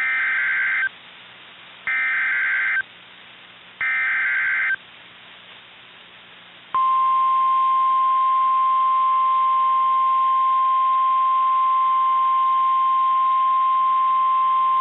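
Emergency Alert System tornado warning header: three short bursts of warbling SAME digital data tones about a second apart, then a single steady alert tone that starts about two seconds later and holds without a break. This signals that a warning message is about to be read.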